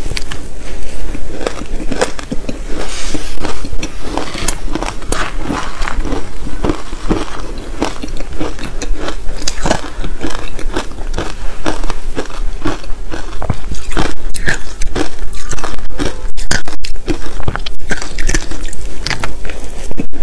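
Close-miked biting and chewing of soft, powdery shaved ice dusted with matcha: a dense, continuous run of small crisp crunches.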